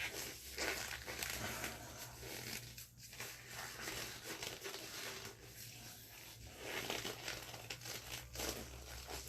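Gloves being pulled onto the hands: irregular crinkling and rustling as the fingers are worked in.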